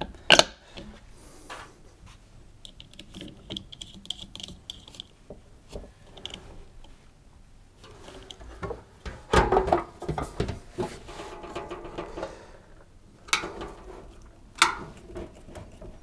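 Light clicks and clatter of plastic and metal parts being refitted to a tumble dryer: the condenser fan pushed back onto the motor spindle, its nut and the heater cover put back with hand tools. A denser burst of clattering comes about nine seconds in, and a few sharp clicks near the end.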